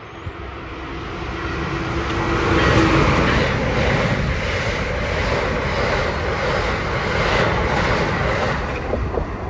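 Passenger train passing directly below: the rumble of cars and wheels on rail grows over the first few seconds and stays loud, with a steady rhythm of wheel clicks over the rail as the cars go by.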